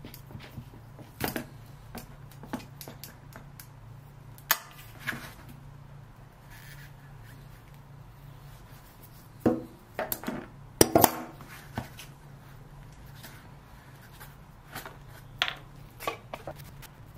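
Locking pliers and a tung oil jug handled on a wooden workbench, the pliers worked on the jug's stuck cap: scattered clicks and knocks, with a sharper cluster around ten to eleven seconds in, over a steady low hum.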